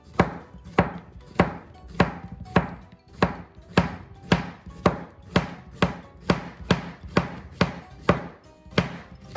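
Kitchen knife slicing a courgette into thin rounds on a plastic cutting board: a steady run of blade knocks on the board, a little under two a second, each with a short swish of the cut.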